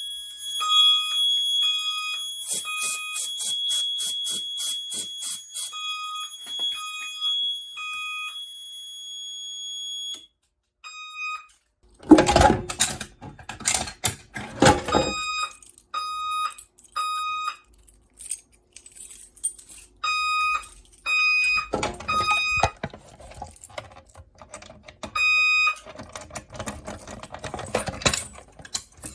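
Fire alarm system beeping during a walk test: runs of short electronic beeps at a steady pitch, about one and a half a second, over a continuous high tone in the first ten seconds. In the second half the beeps go on between bursts of rustling, handling noise.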